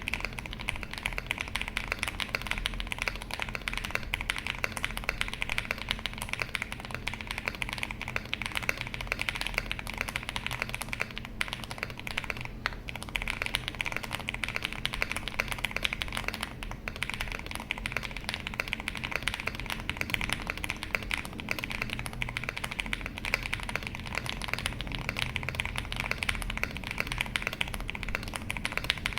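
Continuous fast typing on an Owlab Mr Suit custom mechanical keyboard with Owlab Neon switches on a POM plate, MW02 PBT keycaps and foam-filled case, giving a dense run of key clicks.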